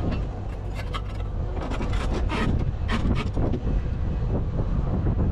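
A steady low engine rumble with a scatter of sharp clicks and rattles over it, heard about a second in and again around two to three seconds in.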